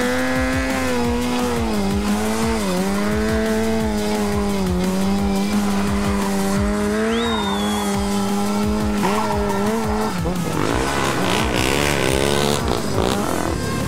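Sport motorcycle engine held at high, steady revs with a few brief dips while the rear tyre spins and squeals in a smoking burnout circle. About ten seconds in, a stunt quad's engine revving up and down takes over.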